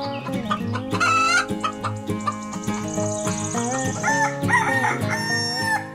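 Rooster crowing and hens clucking, with light background music underneath.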